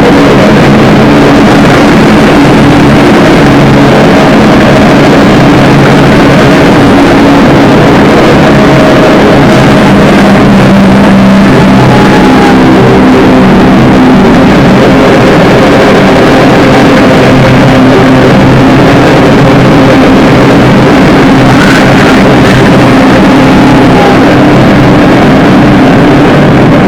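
Drone/noise music: a loud, dense wall of distorted noise over steady low droning tones, with no beat.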